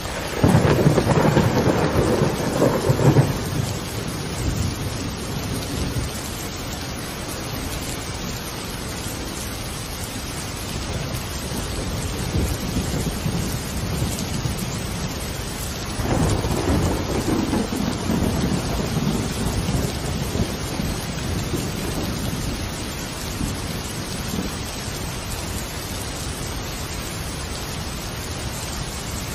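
Steady rain with two rolls of thunder. The first is loud and comes right at the start, lasting about three seconds. The second is longer and softer, rolling in about halfway through.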